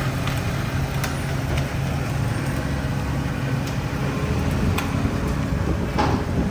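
A motor vehicle's engine running at a steady drone over road noise, with a few light clicks.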